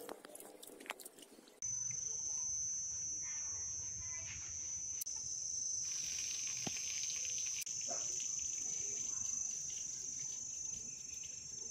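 Insects chirring in one steady, high-pitched, unbroken tone, which starts suddenly about a second and a half in. Before it, faint splashing and clicks of hands washing rice in water in a clay pot.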